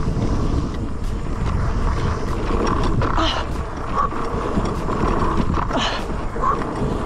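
Fat-tire electric mountain bike ridden fast over a rough dirt track: wind rushing over the microphone on top of the rumble of its wide knobby tyres, with scattered knocks and rattles as it goes over bumps.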